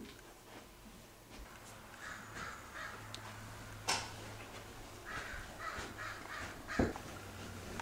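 Crows cawing in two runs of short repeated calls. A sharp click comes about halfway through, and a louder knock near the end.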